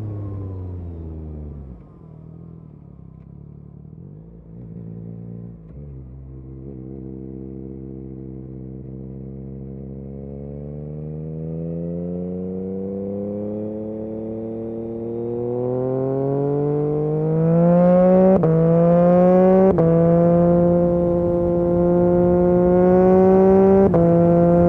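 Yamaha MT-09 SP's three-cylinder engine through an Akrapovic exhaust, under way. The revs fall off and sit low for a few seconds, then climb steadily in one long pull and hold high, broken by brief dips about two-thirds of the way in and again near the end.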